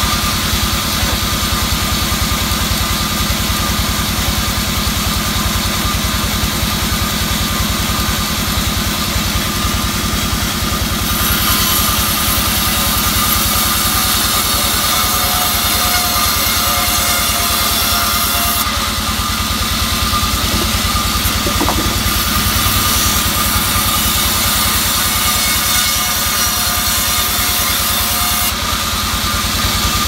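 Vertical sawmill band saw running steadily as planks of albasia wood are fed through the blade. Twice, for several seconds each, the sound turns brighter and hissier.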